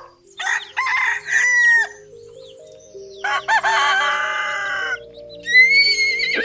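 Rooster crowing three times, with long drawn-out calls, over faint background music.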